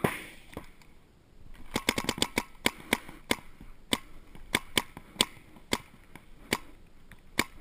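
Paintball markers firing: a quick string of about eight shots, then single shots every half second to second.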